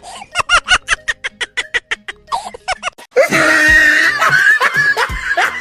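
Rhythmic bursts of laughter, several a second, then about three seconds in a sudden loud, sustained blast of noise, followed by more short bursts of laughter.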